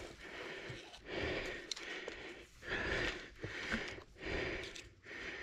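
Mountain biker panting hard after a long downhill run, rapid deep breaths a little faster than one a second, close to the microphone, with a few light clicks and rattles from the bike on the trail.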